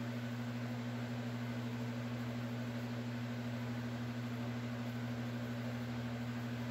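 A steady low hum with a faint even hiss, unchanging throughout, like an appliance or electrical equipment running in the room.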